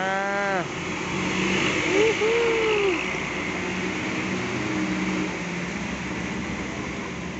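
Sinar Jaya intercity coach driving away on a wet road, its engine running steadily. A hiss of tyres through water fades after about three seconds.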